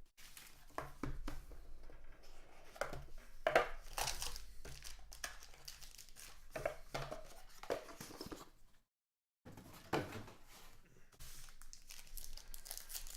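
Packaging on a sealed box of football cards being torn open and crinkled by hand: irregular rustling, crackling and tearing, cut by a short dead silence about two-thirds of the way through.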